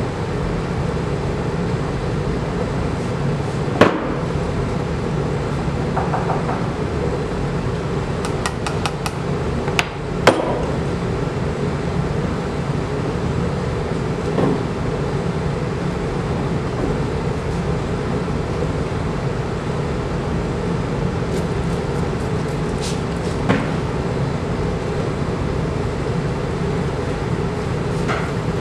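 A steady low mechanical hum, with a handful of light taps and knocks from a plastic triangle and tools being handled on a wooden work board; the sharpest taps come about four and ten seconds in, with a quick run of small clicks just before the second.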